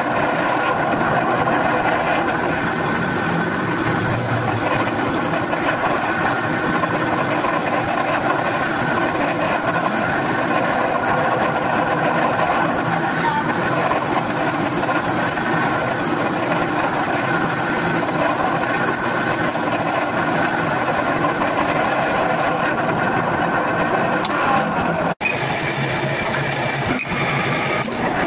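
A machine motor running steadily. It is cut off abruptly about 25 seconds in and then resumes.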